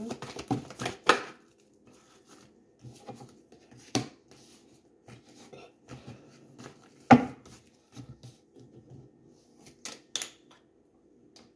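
Tarot cards being shuffled and laid down on a wooden table: scattered taps and slaps, a cluster at the start, a sharp knock about seven seconds in and a few more near the end, over a faint steady hum.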